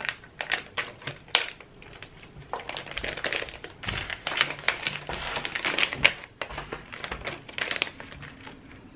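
A plastic candy packet crinkling and rustling as it is handled and opened, with many small sharp clicks, busiest in the middle.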